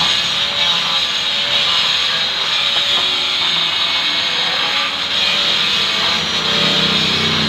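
A power tool running steadily on stone, making a loud, even, high-pitched hiss.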